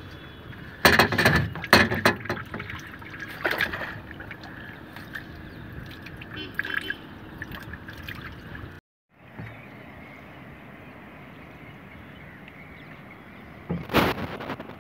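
Water trickling and dripping around a small fishing boat, with sudden clusters of sharp splashes and knocks about a second in, near four seconds and again near the end.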